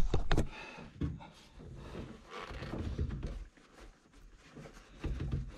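A cloth rag rubbing and rustling in a jet ski's engine bay around the oil filter mount, with a couple of sharp knocks just at the start and handheld camera handling noise.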